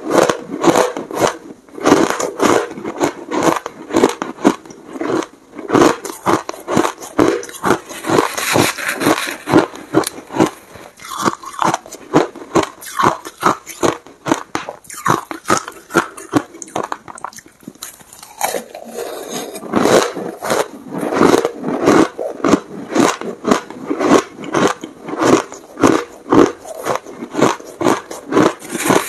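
Close-up crunching of shaved and crushed ice being bitten and chewed: a fast, crisp run of crunches, about two or three a second, easing off briefly about two-thirds through before picking up again.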